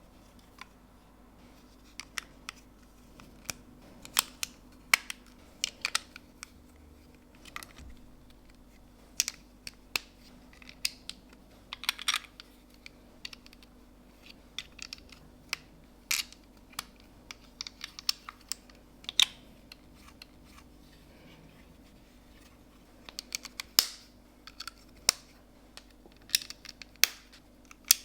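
LEGO bricks being clicked together and handled: irregular sharp plastic clicks and snaps, several in quick succession near the end.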